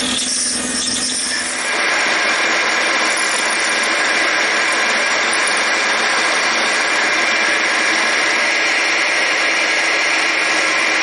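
Metal lathe running while it drills into a part, then, about two seconds in, a milling machine's spindle running with a steady whine as its twist drill bores a cross hole in a small brass part.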